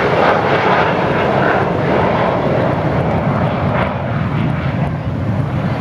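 Avro Vulcan XH558's four Rolls-Royce Olympus turbojets as the delta-wing bomber flies past and away, a loud, even jet rush. Its higher part dulls and the sound fades a little over the last couple of seconds as the aircraft recedes.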